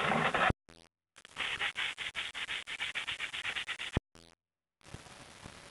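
Handsaw cutting through a board in quick back-and-forth strokes, in two stretches with a short break between; the sawing stops about four seconds in, leaving only a faint hiss.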